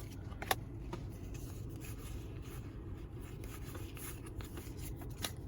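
Soft rubbing and rustling of trading cards and booster-pack foil being handled, with a short sharp tick about half a second in and another near the end.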